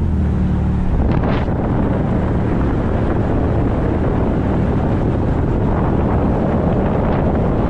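A 1954 Chevy Bel Air's 235 inline-six with dual carburetors and split manifold to dual exhaust, heard from inside the car on the road. About a second in, the exhaust's steady hum turns to a rough, noisy rush.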